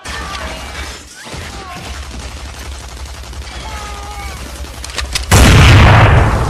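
Battle sound effects: a steady low rumble with scattered gunshots, then a loud explosion about five seconds in that slowly dies away.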